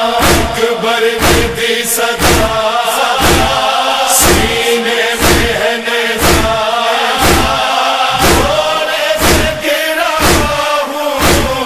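Interlude of an Urdu noha (Shia lament): a chorus of voices holds a wordless, chant-like drone over a steady thumping beat about once a second.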